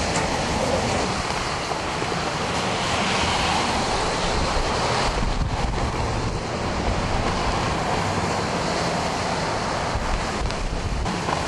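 Tropical-storm wind blowing in a steady rush, with gusts buffeting the microphone.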